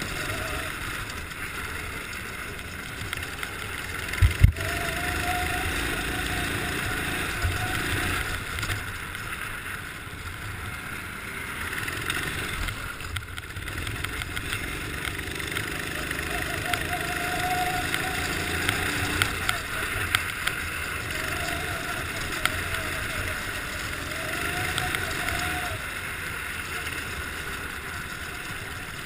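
Go-kart engine heard from the onboard camera, its pitch rising and falling with the throttle through the corners on ice, over steady wind noise. A couple of sharp thumps about four seconds in.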